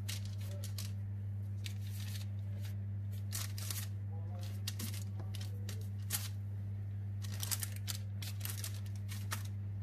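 Parchment baking paper crackling and rustling in short, scattered bursts as hands coil and press dough on it, over a steady low electrical hum.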